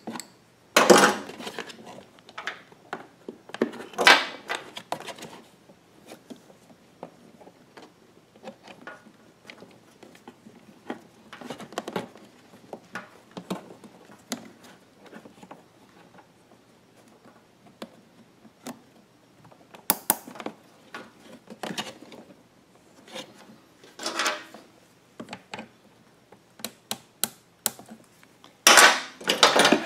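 Hands working rubber fuel hoses and small hose clamps on a portable generator's frame: scattered clicks, taps and rubbing. Several longer, louder scraping noises come about a second in, around four seconds, twice around twenty seconds and near the end.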